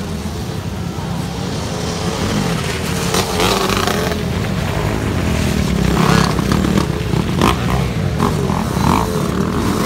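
Motocross dirt bike engines revving and running as the bikes ride through a muddy track, with wavering revs that grow louder after a few seconds as a bike passes close.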